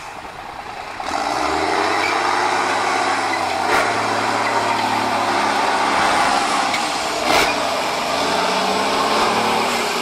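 MAN eight-wheel-drive trial truck's diesel engine revving up about a second in, then pulling hard under load as the truck climbs a steep dirt bank. Two short sharp cracks come midway and again later.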